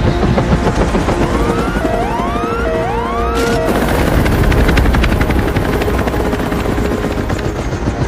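Helicopter rotor chopping over a heavy low rumble in a film sound mix. In the first half, a few short rising whooping tones sound over held notes.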